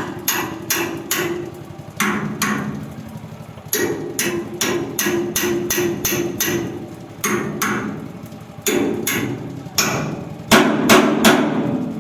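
Hammer striking metal in repeated blows, about three a second, in runs with short pauses between them.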